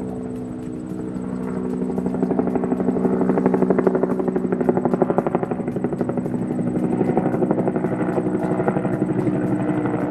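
Toy coaxial helicopter's small electric motors and twin rotors whirring steadily with a fast rotor chop as it flies low and settles onto the floor, a little louder a few seconds in.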